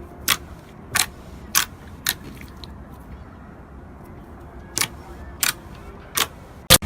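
Slime being poked: eight short, sharp pops as trapped air bursts out. They come irregularly, about one every half second, with a pause in the middle, and the last pop near the end is the loudest.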